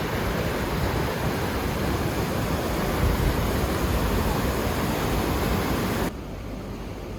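Steady rushing of water at Tawhai Falls, a 13-metre waterfall. About six seconds in it drops suddenly to a quieter rush.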